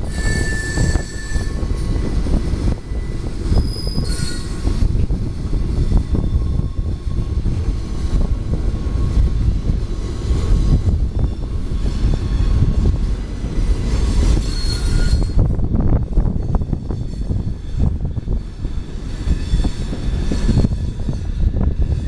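Two CSX freight trains rolling slowly past below: a steady rumble of railcar wheels on the rails. Brief high-pitched wheel squeals come near the start, about four seconds in, and again about fourteen seconds in, as the wheels grind through the curved track of the wye.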